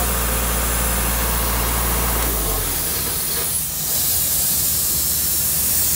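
LeRoi 185 CFM tow-behind air compressor's engine running and then shut off about two and a half seconds in, with a steady hiss of compressed air that grows louder after the engine stops as the pressure bleeds down.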